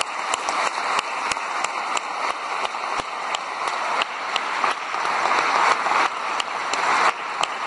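Audience applauding: many people clapping together.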